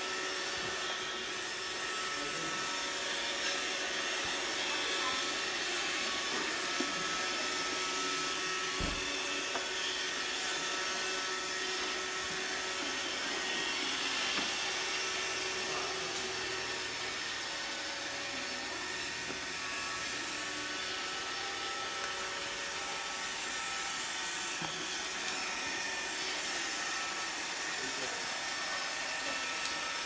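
Roomba robot vacuum running steadily: an even whirring hum with a thin high whine over it. A brief low thump comes about nine seconds in.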